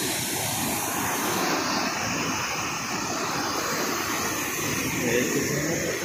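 A swollen, muddy river rushing over rocks and past a low concrete causeway: a steady, even rush of water with no pauses.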